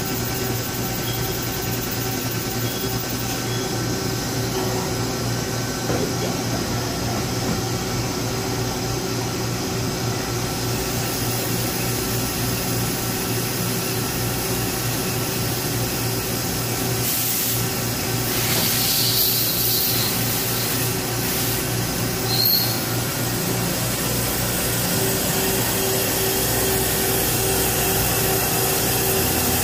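1991 Mazak Super Quick Turn 15MS CNC lathe running a cutting cycle: a steady hum and whine from the spindle and drives, with the hiss of cutting and coolant. The hiss grows louder for a couple of seconds about eighteen seconds in, and a brief high squeak comes about twenty-two seconds in.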